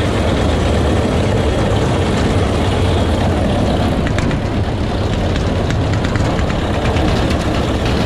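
Tractor engine running steadily with a New Holland 848 round baler working behind it, a continuous low mechanical rumble. The baler is rattling, a sign that the bale is getting close to full.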